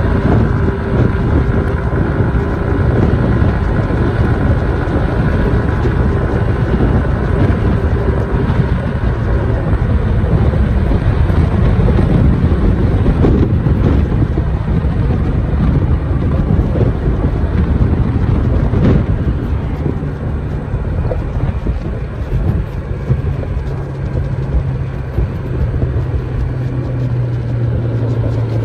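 Yamaha SMAX scooter's single-cylinder engine running while riding, under heavy wind noise on the microphone. From about two-thirds of the way through, the wind eases and a lower, steady engine hum comes forward as the scooter nears an intersection.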